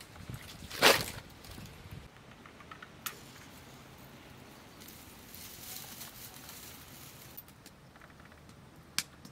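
A matchstick struck on a matchbox, a short scratchy flare about a second in, then faint crackle and hiss as dry straw catches in a clay mud stove, with a single sharp knock near the end.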